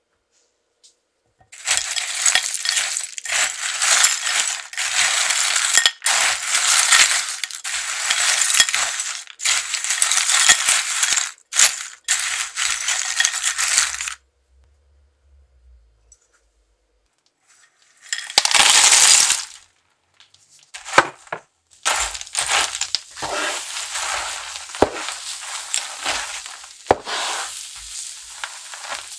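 Nuts and broken biscuits rattling and clinking against a glass bowl as they are stirred with a spatula, in a long run of bursts. After a pause there is a short loud rush, then a spatula scraping and clicking in a pan as the mix is folded into melted marshmallow.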